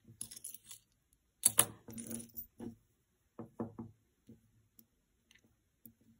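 Pieces of costume jewelry clinking together as they are handled and set down. There is a sharp clatter about one and a half seconds in, then a few lighter clicks, three close together near the middle.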